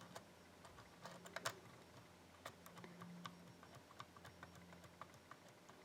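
Faint, irregular clicks and taps of a lock pick working the pins of a 5-pin pin tumbler lock under light tension, with a couple of louder clicks about a second and a half in.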